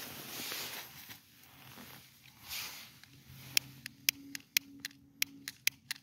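Faint hissing, then from about halfway a run of sharp clicks, two or three a second: a lighter being struck over and over without catching.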